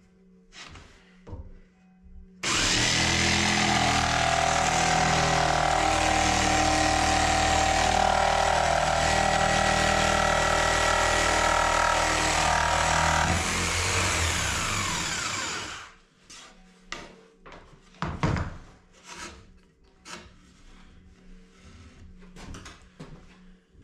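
Corded jigsaw cutting across a sheet of board. The motor starts about two seconds in and runs steadily through a cut of about thirteen seconds, then winds down. Light knocks of the board and saw being handled come before and after the cut.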